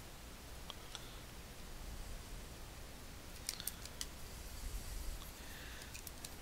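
Scattered sharp clicks from computer input at a drawing desk: a couple around the first second, a quick cluster about three and a half seconds in, and a few more near the end, over faint room hiss.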